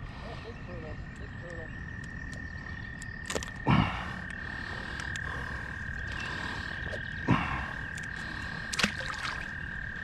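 A frog trilling in one long, steady, unbroken high call. A few brief knocks come through about four, seven and nine seconds in.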